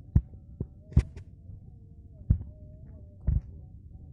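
About five irregular dull knocks and thumps, the loudest about a second in, over a faint wavering hum.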